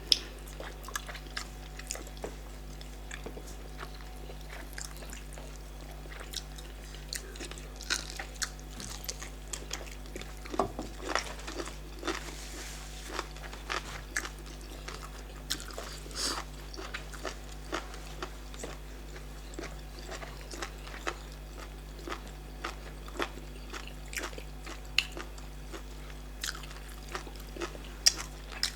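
Close-miked eating: irregular chewing, biting and wet mouth clicks from starch with bitter leaf black soup, over a faint steady hum.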